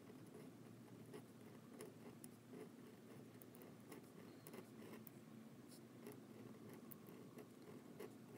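Faint scratching of a Leonard Principal flexible steel nib, fitted in a Jinhao fountain pen, drawn across paper in calligraphy strokes, with small irregular ticks as the nib touches down and lifts.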